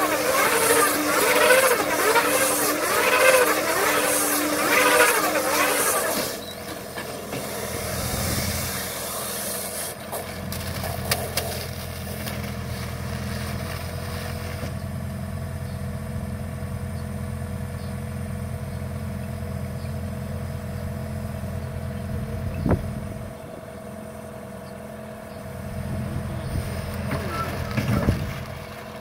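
KUHN SW 4014 AutoLoad bale wrapper wrapping a square bale in stretch film, its rotating film arms giving a rhythmic, wavering whir that stops about six seconds in. The tractor engine and the wrapper's hydraulics then run on steadily with a steady whine, the machine getting busier again near the end as the wrapped bale is lowered.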